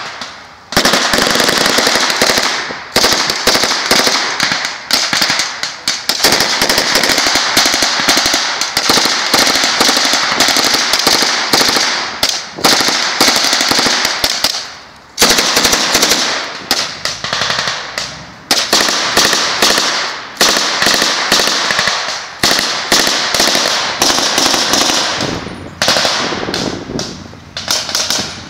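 Small-arms fire from several rifles and a light machine gun: rapid overlapping shots and bursts, with short pauses about a second in and around fifteen seconds in.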